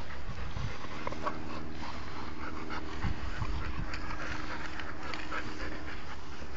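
Dogs playing on grass, with the short scuffling and breathing sounds of the dogs over a constant low rumble and, from about a second in, a faint steady hum.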